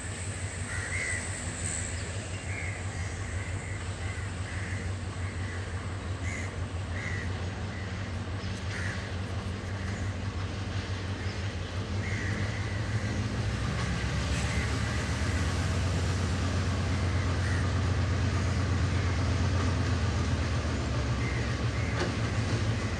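Crows cawing in short repeated calls over the low, steady drone of an EMD G22CW diesel-electric locomotive's 12-cylinder engine, which grows louder from about halfway through as the locomotive approaches.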